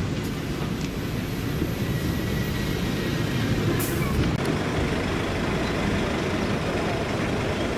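Large diesel bus engine running close by, a steady low rumble, with a short hiss about four seconds in.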